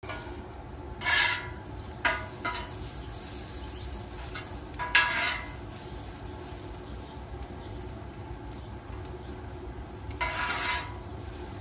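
Metal spatula scraping and turning sliced peppers and onions on a gas griddle over a steady sizzle. There are a few short, loud scrapes, about a second in, around five seconds and near the end, and two brief clicks in between.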